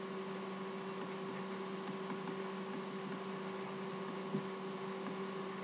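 A steady electrical hum over a low background hiss, with a single faint tick about four seconds in.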